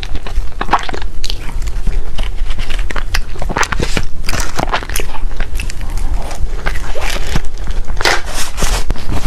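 Close-miked eating sounds of cake being bitten and chewed: an irregular stream of sharp crackly clicks and crunches with wet mouth noises.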